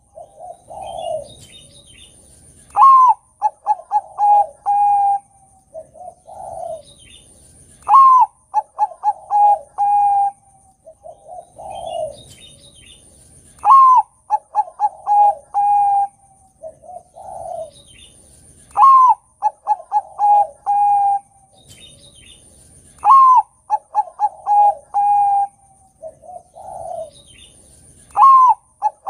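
Bangkok-type zebra dove (perkutut) singing its cooing song loudly, phrase after phrase about every five seconds. Each phrase opens with a rising-and-falling coo, runs into a quick string of short notes and ends on a held note, with a softer, lower coo between phrases.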